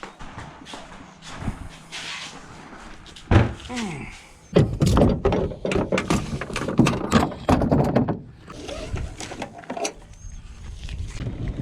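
Gear being moved and set down: a sharp knock about three seconds in, then a run of knocks and clatter lasting a few seconds.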